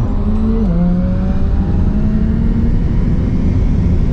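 Tesla Model S Plaid at full acceleration at high speed, heard inside the cabin: heavy wind and road noise with a steady low hum and a faint electric-motor whine slowly rising in pitch as the speed climbs.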